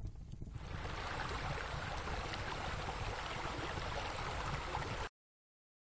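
Steady rushing noise like running water over a low rumble. It swells in about half a second in and cuts off suddenly near the end.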